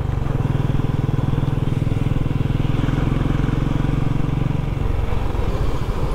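Royal Enfield Bullet's single-cylinder engine running as the motorcycle rides along the road, with an even, rapid beat.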